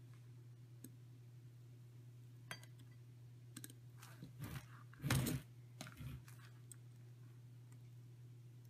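Faint, scattered clicks and taps of a carbon-fibre quadcopter frame and its wires being handled on a workbench during soldering, over a steady low hum. A louder brief noise comes about five seconds in.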